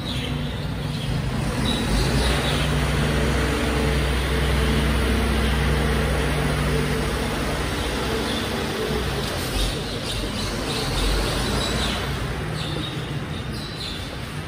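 Mercedes-Benz Arocs rear-loader garbage truck's diesel engine running as the truck pulls away and drives off. The engine note swells about two seconds in, holds for several seconds, then eases off.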